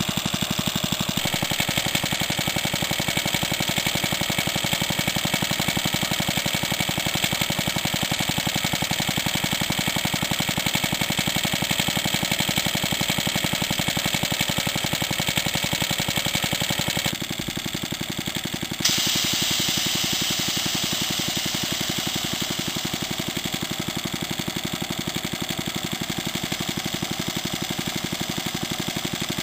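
Vintage Suffolk stationary engine running steadily with rapid, even firing, driving a belt-driven single-cylinder air compressor that is pumping up a pressure sprayer. About two-thirds of the way through there is a sharp click, after which a brighter hiss sits over the running.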